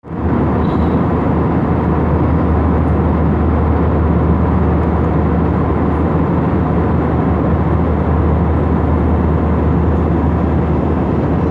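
Airliner cabin noise in flight: engines and rushing air make a loud, steady noise with a low hum underneath.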